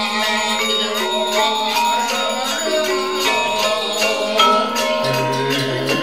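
Background music of ringing, bell-like struck notes over a steady low held tone.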